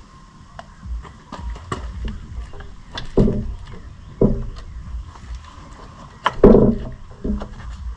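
Hands-on work at an ATV's front sprocket and chain: irregular metal clunks, clicks and scrapes as parts are fitted by hand. There are heavier knocks about three and four seconds in, and the loudest comes about six and a half seconds in.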